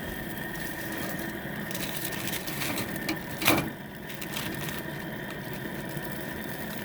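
A steady low hum runs underneath, with a few light clicks near the middle and one sharp clack about three and a half seconds in, like a grilling utensil knocking against the grill.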